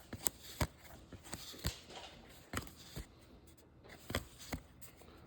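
Baseball trading cards being handled and flipped through by hand: card stock sliding and snapping, with a string of irregular sharp clicks.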